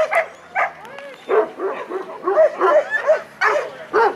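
Dog barking over and over in short, high yips, about three a second, with a brief pause about a second in.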